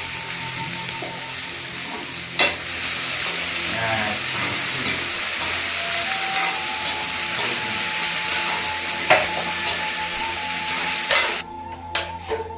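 Chopped okra sizzling as it fries in an aluminium kadai while being stirred, with a few sharp clinks against the pan. The sizzle cuts off suddenly near the end.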